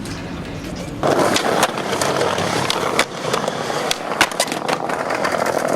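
Skateboard wheels rolling on pavement, a steady rolling noise with frequent sharp clicks, starting suddenly about a second in.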